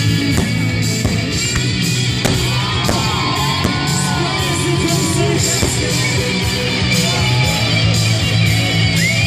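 Loud rock music with guitar and a steady bass line.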